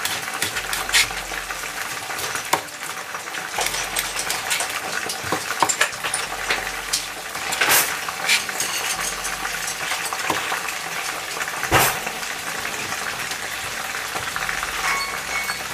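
Potato-starch-coated chicken pieces deep-frying in oil at 170 °C, a steady sizzle and crackle. A kitchen knife slicing green onions taps sharply on a plastic cutting board now and then.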